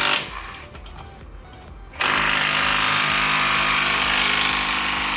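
A power tool running at full speed in bursts: one burst stops just after the start, and after a pause of about two seconds it starts again abruptly and runs at an even, steady level.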